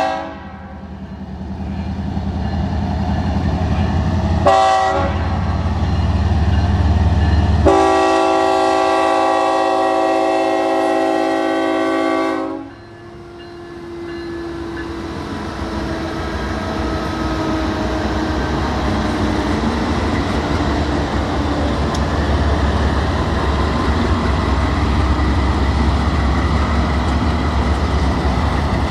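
BNSF diesel freight locomotive's multi-chime air horn blowing the end of a grade-crossing signal: a blast that stops just after the start, a short blast about four and a half seconds in, then a long blast of about five seconds. After the horn, the lead GE locomotives and the train run past close by with a steady, heavy rumble.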